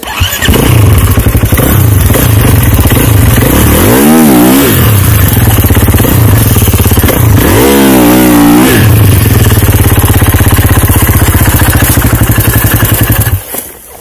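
Kawasaki snowbike engine running loudly with a steady low pulse, revved up and back down twice while the bike sits dug into deep snow. The engine sound cuts off suddenly shortly before the end.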